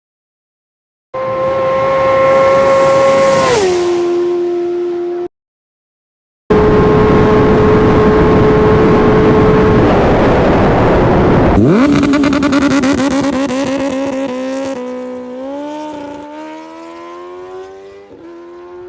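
Kawasaki ZX-10R inline-four sportbike flying past at very high speed, twice: a steady high engine note whose pitch drops sharply as it goes by. On the second pass it then fades into the distance, its note climbing and stepping down through several upshifts; the passes are separated by brief dead-silent edit cuts.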